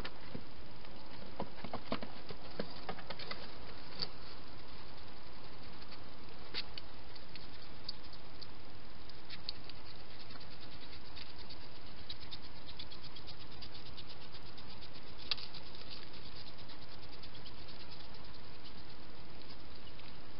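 Wild hedgehogs feeding and foraging: quick, irregular clicks and crackles of chewing and snuffling, busiest near the start and again a little past the middle, over a steady hiss.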